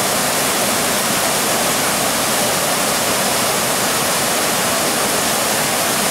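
Floodwater pouring through a lake's surplus weir: a loud, steady rush of churning white water with no let-up.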